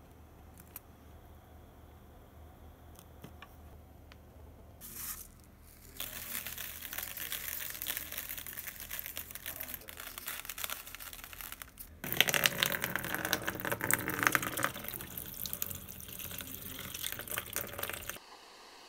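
Water poured into a plastic tub holding wired-up rusty knife parts, filling a bath for electrolytic rust removal. The pouring starts about six seconds in, grows louder about halfway through, and stops abruptly near the end.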